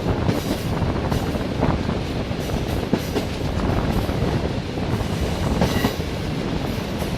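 Passenger train wheels rolling along the track: a steady low rumble with irregular clickety-clack knocks over the rail joints, and a brief higher screech about six seconds in.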